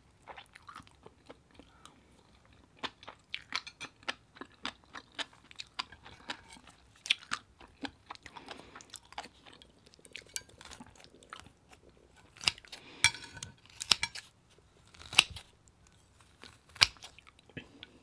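Close-up chewing and mouth sounds of someone eating, with many short sharp clicks. In the second half come louder snips as metal kitchen scissors cut through a whole cooked cuttlefish.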